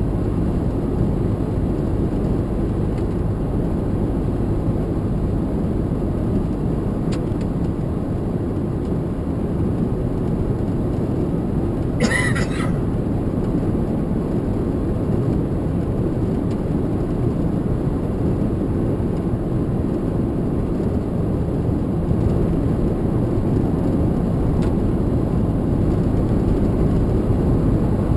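A truck driving on the road: a steady low rumble of engine and tyres, with a brief higher-pitched sound about twelve seconds in.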